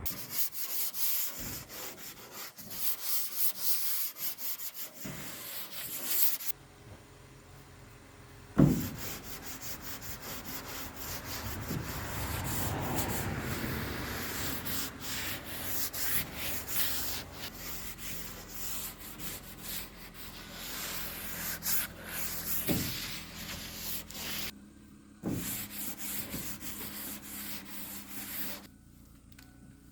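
Sandpaper worked by hand over the painted sheet-metal body of a 1978 Ford pickup, taking off the old paint in quick back-and-forth rubbing strokes. The strokes stop briefly a few times, and there is a sharp knock about nine seconds in.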